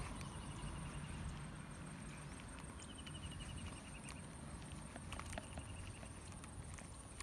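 Marsh wildlife calling: a rapid ticking trill about a second long, repeated every two seconds or so, over a steady high whine and a low rumble of wind.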